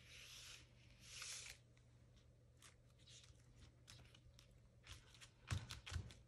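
Faint rustling of a die-cut paper dream catcher being slid into place on a scrapbook page: two short swishes in the first second and a half, then scattered small ticks. Near the end a few soft thumps as hands press the paper down onto the board.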